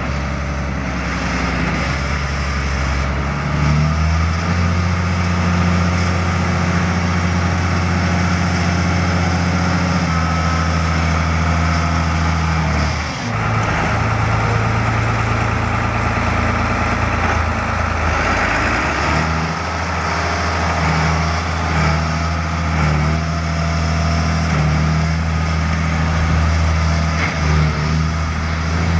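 A New Holland 8970 tractor's Ford 7.5-litre six-cylinder turbo diesel running under way as the tractor drives by. The engine note steps up a few seconds in, dips briefly about halfway, and shifts again a few seconds later.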